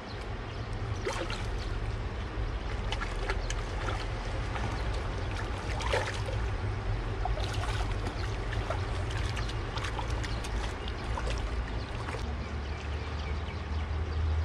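A hooked fish splashing and thrashing at the water's surface as it is played on a hand pole: a run of quick, irregular splashes that die away about twelve seconds in, over a steady low rumble.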